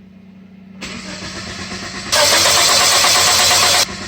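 Starter cranking the Chevrolet Metro's 1.3-litre four-cylinder engine, turning over steadily without firing, a crank-no-start. There is no fuel-pump prime, pointing to a fuel-supply fault. A much louder hiss-like noise covers the middle second and a half of the cranking.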